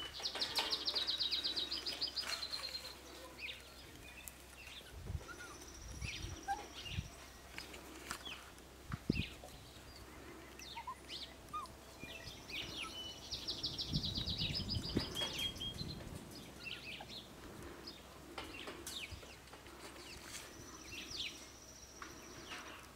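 A songbird singing a rapid trill of repeated high notes, twice about twelve seconds apart, with scattered short chirps in between and a few soft low thumps.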